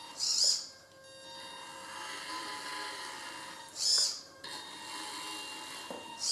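Tamiya CR-01 RC crawler's brushed electric motor and geared drivetrain running at crawling speed: a steady whine on fixed pitches. Three short, louder high-pitched buzzes come from its four-wheel-steering servos as they turn the wheels: one near the start, one about four seconds in and one at the end.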